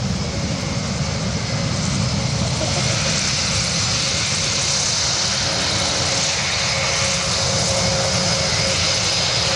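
Airbus A400M's four Europrop TP400-D6 turboprop engines and propellers running as the aircraft passes close by on the ground: a steady drone with a high whine that grows stronger about two seconds in.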